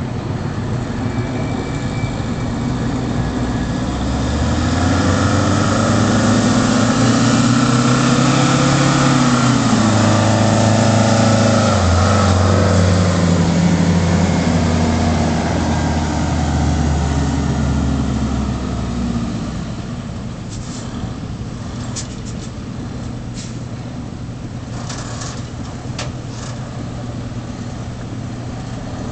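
1978 American LaFrance tiller ladder truck's 8V71 Detroit two-stroke V8 diesel running as the truck drives by, its engine note rising and falling. It grows louder as the truck passes close, then falls back as it moves away.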